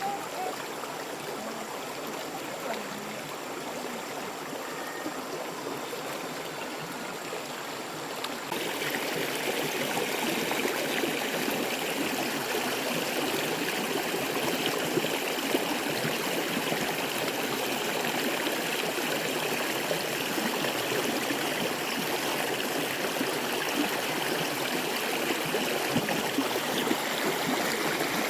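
Running water, a steady rush like a stream, that gets louder and brighter about eight seconds in and then holds steady.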